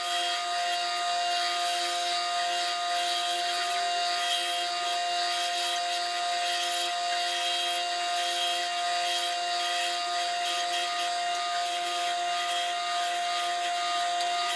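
Power saw cutting wood, its motor running with a steady tone under the hiss of the blade through the wood.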